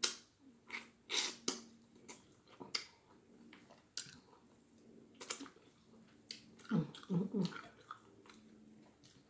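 Close-up chewing of baked turkey wing meat, with irregular wet mouth clicks and bites. A short hummed voice sound comes about seven seconds in.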